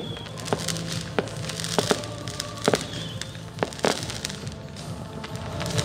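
Fireworks going off: irregular sharp bangs and crackles, about a dozen, over music with held tones playing underneath.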